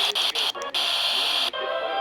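Music from a radio broadcast with a steady hiss behind it; held notes come in about one and a half seconds in.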